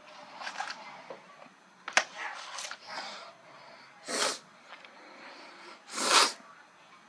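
Flat iron clicking shut on hair about two seconds in, with rustling as it is drawn through. Later come two short, loud, breathy puffs, the loudest sounds.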